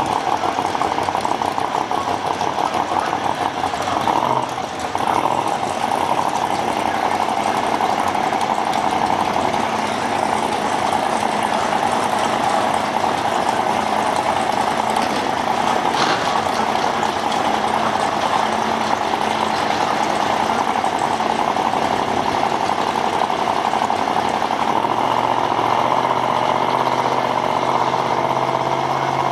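Supercharged engine of a blue Aston Martin-bodied drag car idling steadily on the drag strip's start line, loud and unchanging, with a short dip and knock about four seconds in.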